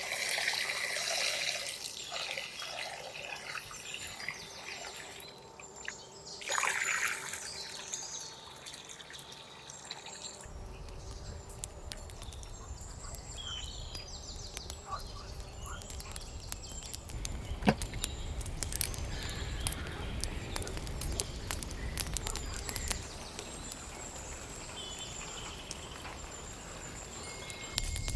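Outdoor water sounds, trickling and dripping, with birds calling in the first few seconds. From about ten seconds in there is a low rumble under many small scattered ticks and drips.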